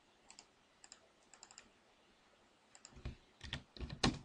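Computer keyboard keys and mouse clicks: a few soft clicks in the first second and a half, then a quick cluster of louder key taps and clicks in the last second and a half, as dimension text is typed in.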